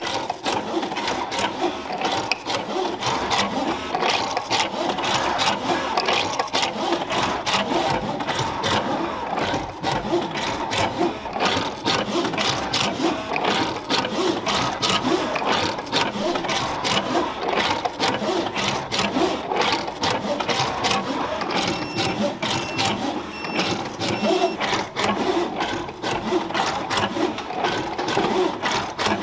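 Lucky Engineering automatic sushi rice-forming machine running, a steady mechanical clatter of rapid ticks and knocks as it shapes nigiri rice portions.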